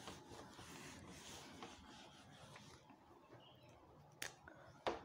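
Faint rubbing of a duster wiping a whiteboard clean, followed by two short clicks near the end.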